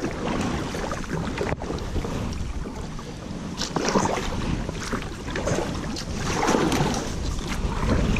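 Canoe on a small river held up by fallen branches: water slopping around the hull and wind buffeting the microphone, with irregular rustling and scraping swells.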